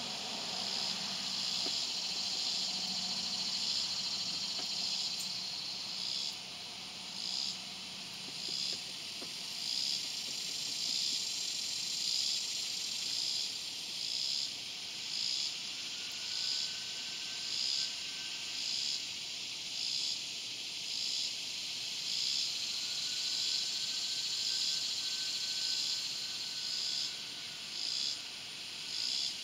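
Swamp cicada (Neotibicen tibicen) calling: a loud, high, buzzing drone. About six seconds in it begins to pulse, dipping briefly roughly once a second.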